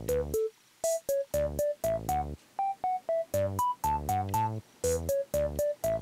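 Background music: a bouncy synthesizer melody of short, separated notes, about three to four a second, over a low bass line.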